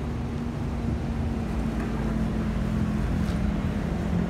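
Airbus A320neo's CFM LEAP-1A turbofans passing high overhead: a steady low rumble with a low hum that drifts slightly lower in pitch toward the end.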